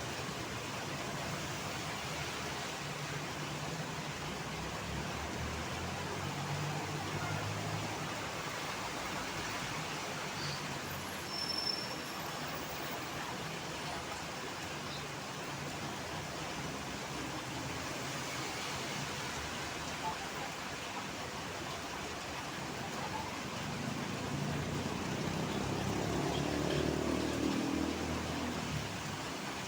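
Road traffic in heavy rain: a steady hiss of rain and wet tyres under the low hum of passing engines. A louder vehicle passes near the end, its engine sound rising and then falling away.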